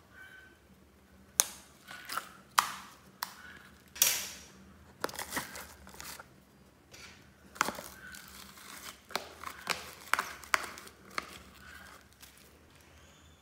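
Foam-bead slime being squeezed and squished by hand in a plastic container, making irregular crunchy crackles and sharp snaps, a few louder cracks in the first four seconds.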